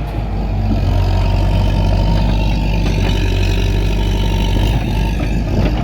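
Excavator engine running steadily, with a deep, even drone.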